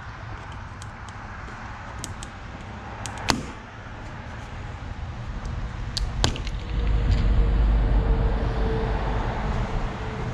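Crossbar glue-pull dent puller being tightened with a wrench on a car's sheet-metal roof: scattered light clicks and three sharp snaps, the loudest about three seconds in and two close together about six seconds in. A low rumble builds through the second half.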